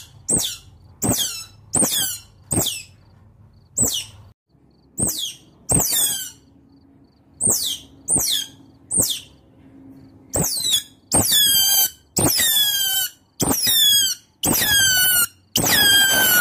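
Otters calling: short, high-pitched chirps and squeaks that fall in pitch, spaced out at first, then from about two-thirds of the way through longer, louder squeals coming roughly every half second.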